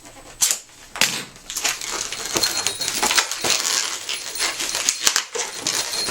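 Latex modelling balloons squeaking and rubbing against each other as they are twisted and handled: a few sharp squeaks at first, then a steady run of rubbing and squeaking from about a second and a half in.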